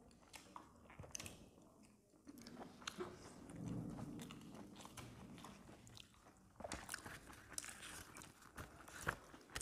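Faint chewing of a momo (steamed dumpling): soft wet mouth sounds with small scattered clicks, busier in the last few seconds.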